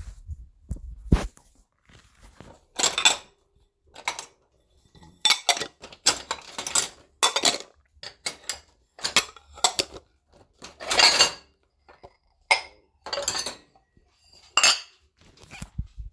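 Ceramic plates, dishes and bowls being handled and stacked, clinking and clattering against each other in irregular bursts with short pauses between.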